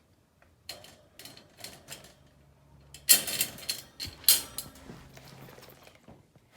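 Metal latch and door of a dog crate being worked open: light clicks and rattles, then two loud clanks about a second apart.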